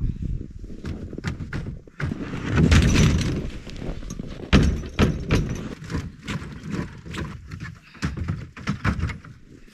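Repeated clanks, thunks and scraping as a folding aluminum snowmobile ramp and a plastic sleigh are handled at the back of a pickup truck. The loudest stretches come about two and a half seconds in and again just before five seconds.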